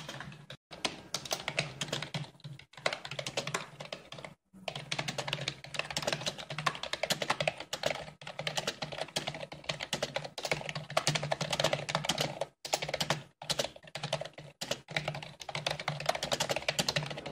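Rapid typing on a computer keyboard: fast runs of key clicks broken by several short pauses, over a steady low hum.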